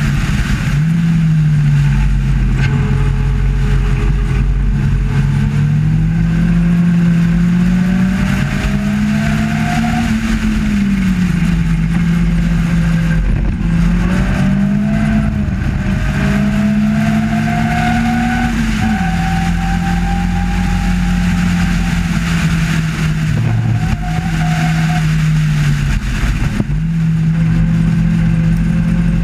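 Race car engine at high revs heard from the open cockpit, its pitch climbing slowly several times and dropping as the car slows for corners, over a steady rushing noise.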